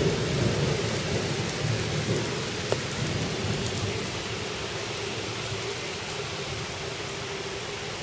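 Rain falling steadily during a thunderstorm, with a low thunder rumble that slowly fades over the first half. A single sharp tap sounds a little before the middle.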